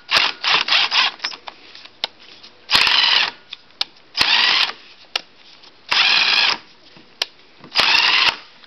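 Impact driver spinning a nut up and down a bolt in short bursts with a whine: a few quick blips at first, then four longer runs of about half a second. It is chasing the bolt threads clean of burrs and dirt so the nuts will run up by hand.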